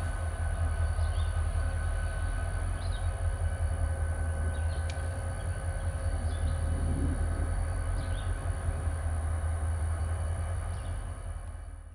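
Diesel-electric freight locomotives running as they creep slowly ahead, a steady deep engine rumble with a thin steady whine over it. A few short bird chirps come through, and the sound fades out near the end.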